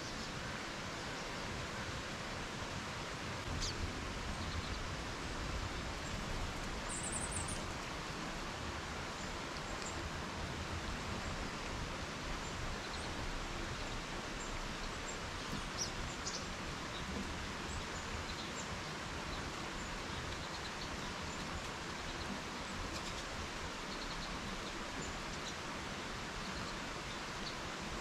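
Steady outdoor background noise with a few faint, brief songbird chirps scattered through it.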